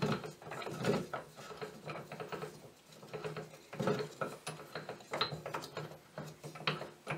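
Home-made rise-and-fall crank on a Startrite Bantam drill press, turned by hand: the wooden gear wheel and lifting mechanism click and rattle irregularly as the motor and head are moved up and down.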